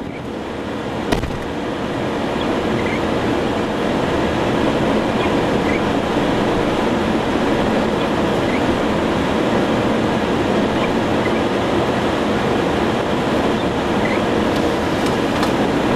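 Loud, steady storm roar of wind and precipitation beating on the chase truck as a large tornado forms close by, with one sharp knock about a second in.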